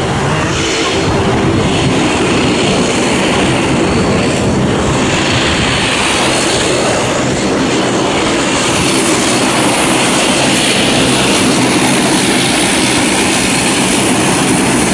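Airliner engines running loud and steady as aircraft taxi close by: a jet and a Dash 8-400 turboprop with its propellers turning.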